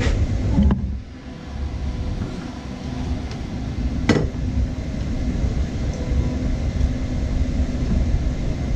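Aluminium Eaton supercharger being lowered by hand onto the engine and settled into place, with a light knock just under a second in and a sharp metallic clink about four seconds in, over a steady low rumble.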